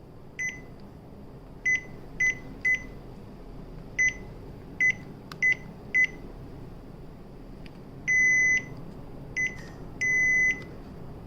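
Electronic beeper on a KDK ceiling fan's control board, sounding at the same pitch in answer to each command: nine short beeps at uneven intervals and two longer beeps near the end. The beeps show that the repaired board has power and is responding.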